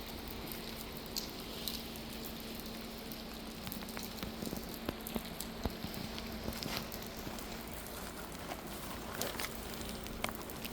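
Steady rain falling, an even patter with scattered sharper drops ticking onto a surface, over a faint steady hum.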